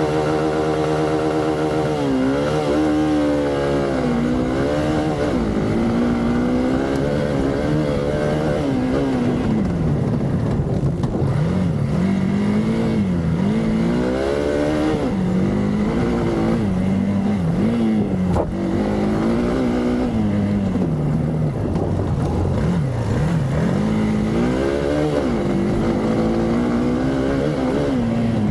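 Single-cylinder four-stroke engine of a Hero Xpulse 200 dual-sport motorcycle, ridden hard off-road. The revs climb and drop again and again, so the engine note keeps rising and falling.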